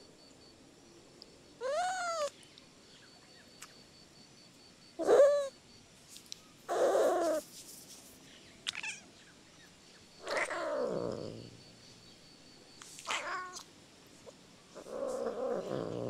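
Cat meowing: about seven separate calls with short pauses between them, some clear and arching up and down in pitch, others harsher, and one near the middle sliding down low.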